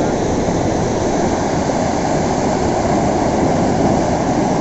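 Sea surf rushing on the beach: a steady, even roar without breaks.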